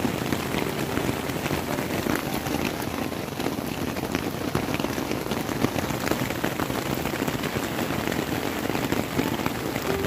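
Steady rain falling: an even hiss thick with many separate drop hits.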